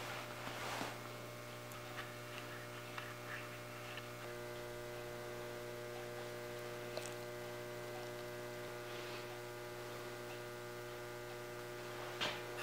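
Steady electrical mains hum, with a few faint clicks and light handling noises over it.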